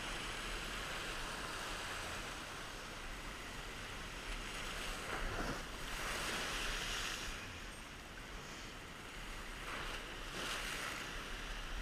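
Ocean surf washing and breaking against sea rocks, a steady wash with one wave crashing in about five seconds in and another near the end.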